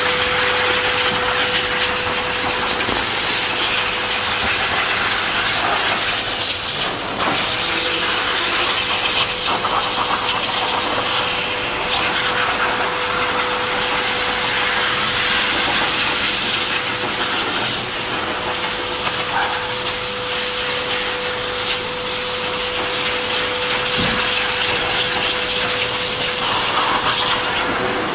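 High-velocity pet grooming dryer blowing air through its hose onto a wet dog's coat: a steady rushing hiss with a constant motor whine.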